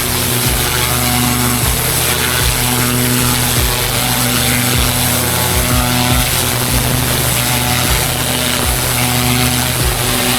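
Pressure washer engine running steadily, with a high hiss of spraying water over it.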